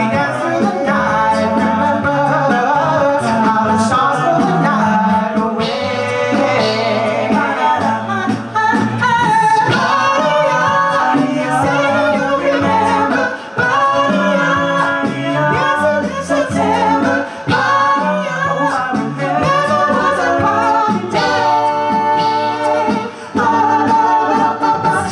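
Male a cappella group singing live in close harmony, with a low sung bass line moving under the voices and no instruments.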